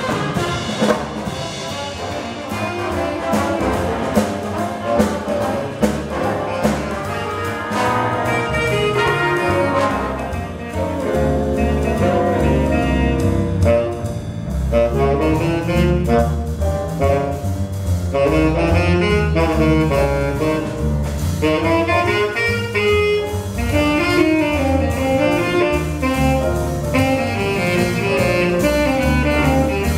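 Jazz big band playing live: a saxophone section with trumpets and trombones over drum kit and bass.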